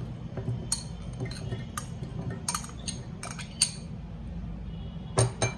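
A metal spoon clinking and scraping against a glass bowl and a steel mixer-grinder jar as chopped amla is spooned into the jar: a quick string of light clinks and taps through the first few seconds, then a couple more near the end.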